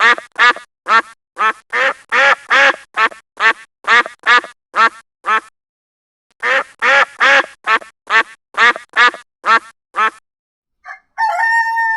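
Duck quacking: a rapid run of short quacks, about three a second. It pauses for about a second midway, then starts again.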